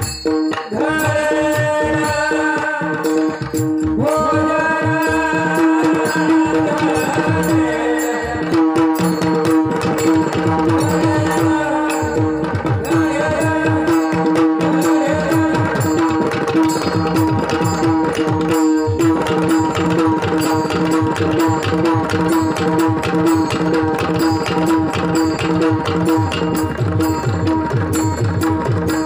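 Marathi kirtan music: a steady held drone under a fast, even hand-drum rhythm, with a melody line over it in the first several seconds.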